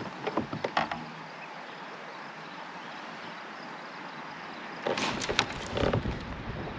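Fishing gear being handled in a kayak: a few sharp clicks and knocks in the first second, then a denser cluster of knocks with a low rumble about five seconds in as the rod is swung back for a cast, all over a steady outdoor hiss.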